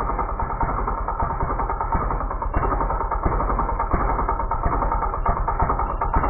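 Husqvarna 460 chainsaw's two-stroke engine idling steadily with the bar, chain and clutch cover off, the clutch spinning exposed.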